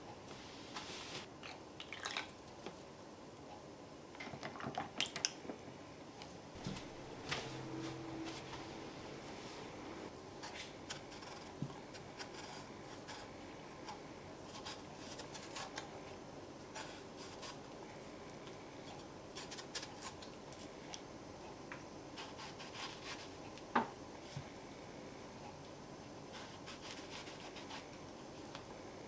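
Quiet kitchen handling sounds: a small kitchen knife peeling and slicing a ripe peach over a cutting board, with soft wet cutting sounds and scattered small clicks and taps. One sharper click comes a little past two-thirds of the way through.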